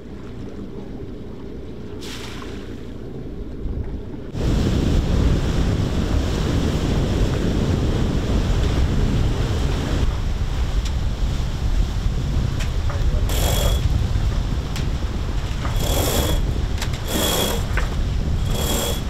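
Wind buffeting the microphone and water rushing along the hull of a sailing catamaran under sail; the wind noise gets louder about four seconds in. In the last few seconds come four short high squeaks.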